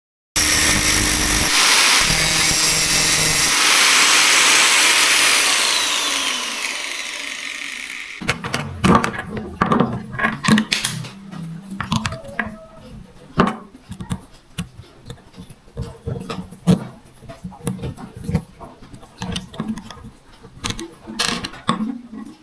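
Electric drill running for several seconds, then winding down, followed by a series of irregular clicks and knocks.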